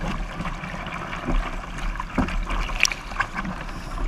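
Water rushing and splashing along the hull of an International 505 racing dinghy sailing fast, with a low rumble and scattered sharp ticks through it.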